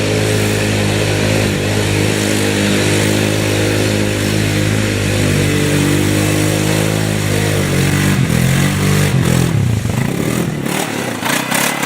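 ATV engine running close by at a steady pitch, then changing speed, its pitch rising and falling about eight seconds in. Near the end the engine sound drops away under a rapid crackling.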